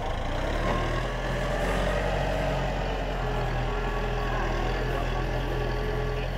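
A motor engine running steadily at idle: a low, even hum that comes in about half a second in and holds.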